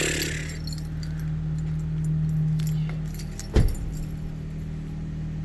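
The Lexus LS430's 4.3-litre V8 starts, runs with a steady hum that swells for a moment, then gets one sharp rev about three and a half seconds in, its pitch falling quickly as it drops back. This is a cold start, revved before the engine has warmed up.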